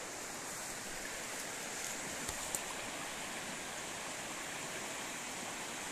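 Small mountain river flowing over stones in a shallow riffle: a steady, even rush of water.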